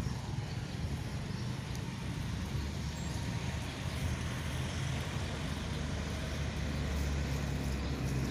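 Road traffic: a steady low rumble that grows a little louder in the second half.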